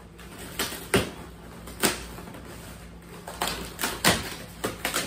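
Handling of a taped cardboard shipping package being wrestled open: about eight short knocks and scrapes, spaced unevenly.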